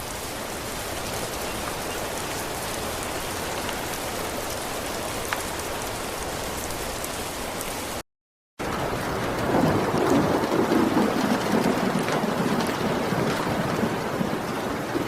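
Steady rain falling, an even hiss of drops. The track drops out for about half a second midway, then comes back heavier with a low rolling rumble of thunder swelling for a few seconds.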